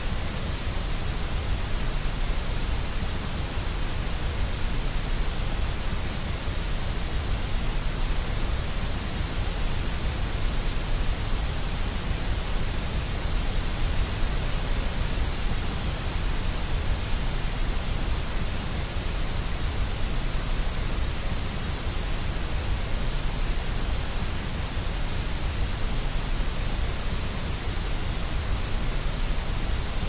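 Steady white noise: an even, unchanging hiss with a deep rumble beneath it.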